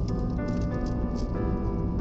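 Background music with piano-like keyboard chords, the held notes changing about once a second.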